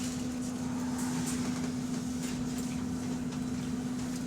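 Electric bus drivetrain giving off a steady hum at one pitch over the rumble of the moving bus, the odd noise it makes while rolling with the accelerator released.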